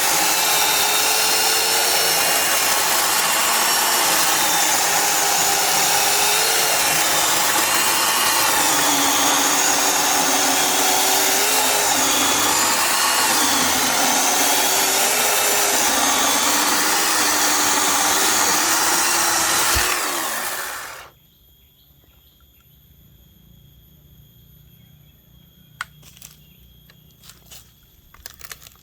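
Greenworks cordless electric chainsaw running and cutting wood, its motor pitch dipping and wavering under load. About twenty seconds in the motor winds down and stops, leaving only a few faint clicks.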